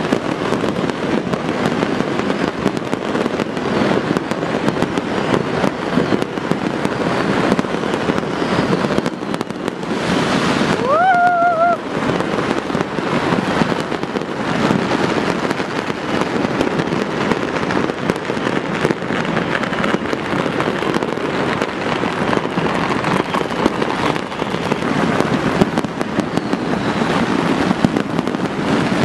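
Dense, unbroken crackling and popping of many fireworks and firecrackers going off all over a city, the individual bangs blurring together. About eleven seconds in, a short whistle rises, then holds and wavers for about a second.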